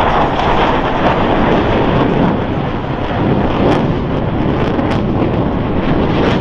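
Jet noise from Blue Angels Boeing F/A-18E/F Super Hornets flying the demonstration, their twin General Electric F414 turbofan engines making a loud, steady roar.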